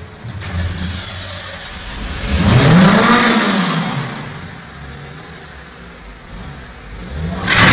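A vehicle engine revs up and then falls away over about two seconds, over a steady low engine background. Another loud surge of engine noise starts near the end.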